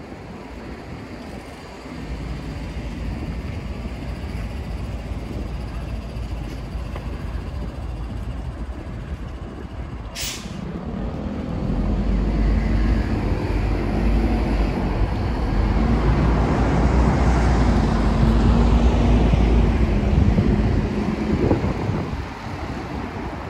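City street traffic: a steady rumble of passing vehicles, with a short sharp hiss about ten seconds in. Then a heavy vehicle's engine runs loud close by for about ten seconds, falling away near the end.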